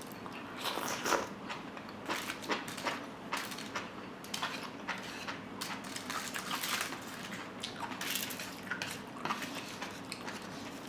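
Eating sounds: chewing oven-roasted barbecue, with light irregular clicks of utensils against a dish.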